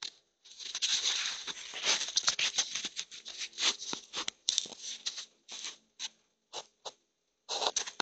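Close, irregular rustling and scratching noise. It is dense for the first four seconds or so, then breaks into short separate scrapes.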